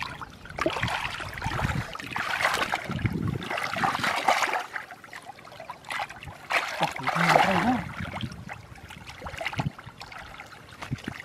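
Hands groping and sloshing through shallow muddy water, with splashing and trickling that swells in bursts as the arms move.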